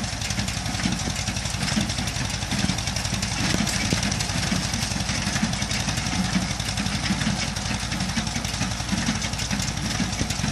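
Tractor and hay baler running steadily, with a fast, even engine pulse under a continuous mechanical clatter.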